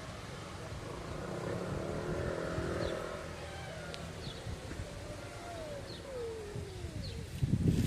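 Stray cat meowing, with a few falling meows in the second half, over a steady rumble of street traffic; a loud low thump near the end.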